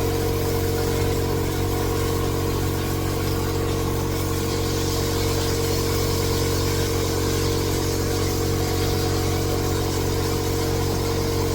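Meat searing in a hot stainless pot, sizzling steadily, under a constant low motor hum.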